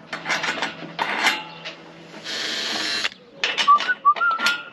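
Mechanical work on bolts. A small motor-driven tool whirs briefly about two seconds in, and runs of ratchet-like clicks and metal taps come either side of it. A few short, high squeaks come near the end.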